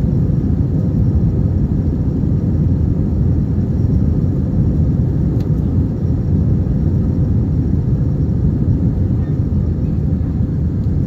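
Steady low rumble of an Airbus A321's engines and rushing air, heard inside the passenger cabin during the climb after takeoff.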